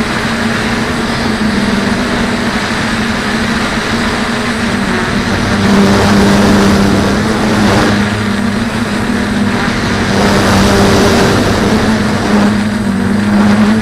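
DJI F450 quadcopter's motors and propellers buzzing in flight, the pitch shifting up and down with throttle, over a rush of air. It grows louder about halfway through and again a few seconds later.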